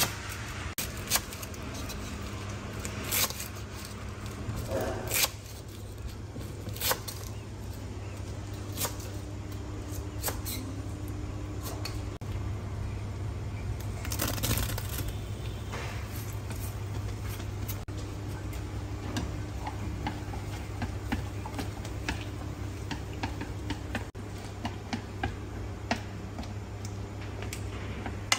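A kitchen knife cutting through garlic chives on a wooden cutting board, giving crisp sharp knocks at irregular intervals over a steady low hum.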